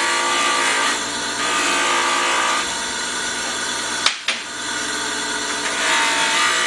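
Motor-driven blending (deburring) wheel spinning while a mild-steel Pullmax die is held against it and buffed to a high polish. The abrasive rush swells and eases as the part is pressed and moved on the wheel, with one sharp click a little after four seconds in.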